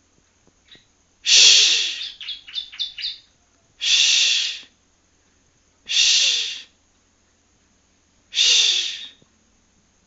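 Young yellow-bellied prinia (ciblek kuning) practising its song: four harsh, hissy calls spaced a couple of seconds apart, the first followed by a quick run of five short chirps. The rough, unformed notes are those of a juvenile bird still learning to sing.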